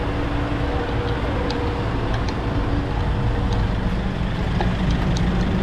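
Motorcycle running on the move: a steady low engine rumble under an even rush of noise, with faint steady hum tones.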